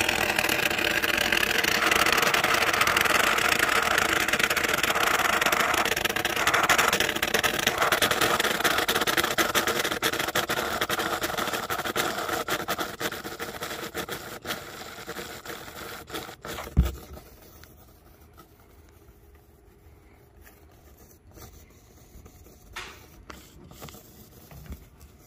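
Aerosol can of Great Stuff expanding foam discharging through its straw applicator: a steady hiss that weakens and dies away about two-thirds of the way through as the can empties, followed by a single knock.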